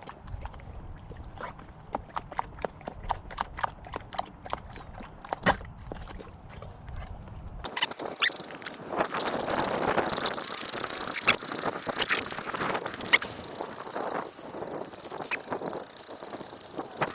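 A dog panting in a steady rhythm, about three breaths a second. About eight seconds in it cuts off abruptly to a dense, noisy rushing sound with scattered clicks.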